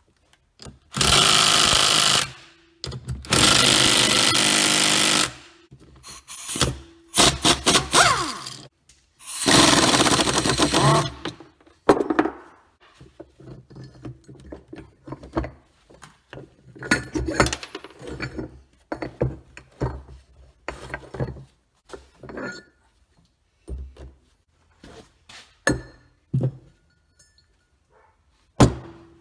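A power tool run in four bursts of one to two seconds, taking apart a Barber Colman electric diesel-engine governor, then irregular clanks and rattles of metal parts being handled.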